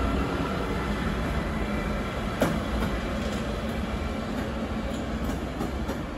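Siemens Vectron electric locomotive running light, its wheels rumbling on the rails as it moves away, slowly fading. There is a single sharp click about two and a half seconds in.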